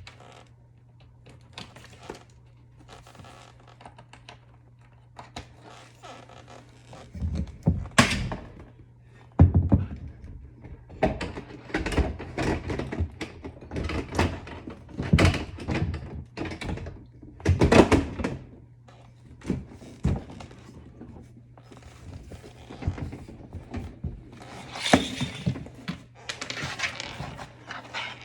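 Irregular knocks, clunks and clatters of hands working on a GE dishwasher's door and control panel during a panel replacement, over a steady low hum.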